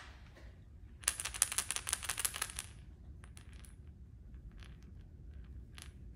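Turned wooden baby rattle being shaken, the loose pieces inside its hollow head clicking rapidly for about two seconds, then a few scattered clicks.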